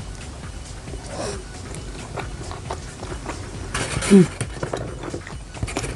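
Close-up eating sounds: wet chewing and mouth clicks while biting and chewing grilled street food. About four seconds in, a louder burst ends in a short falling vocal sound.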